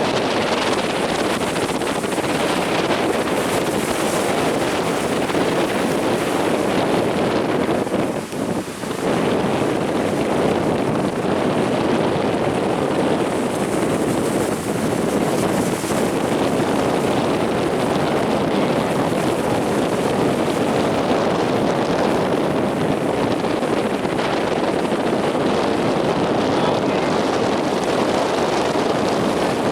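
Strong wind buffeting the microphone over the steady rush of heavy surf, with a brief lull about eight seconds in.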